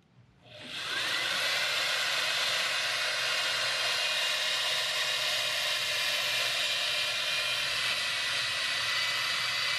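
Electric drill spinning a flap sander (sandpaper strips on a dowel) against a rifle's trigger guard. It spins up about a second in, then runs steadily with a motor whine over the hiss of the sandpaper.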